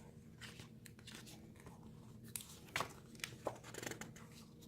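Faint paper rustling with a few light taps and clicks, as the pages of a paper journal are handled and turned, the taps clustered in the second half.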